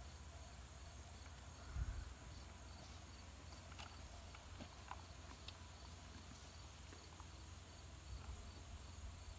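Quiet outdoor ambience: insects chirping in a steady, evenly pulsing pattern over a low rumble. There is a brief low thump about two seconds in, and a few faint clicks in the middle.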